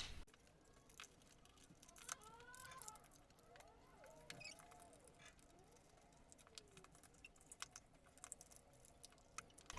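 Very faint, scattered small clicks of plastic parts and batteries being handled as batteries are fitted into a toy robot's battery compartment and its cover is screwed back on, with faint voices in the background.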